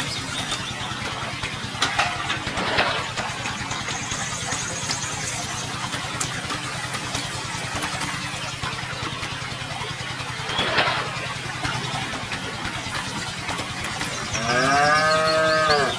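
Water poured from a small cup splashing and trickling into a shallow pond over a steady low motor hum. Near the end a cow moos once, its pitch rising then falling, the loudest sound.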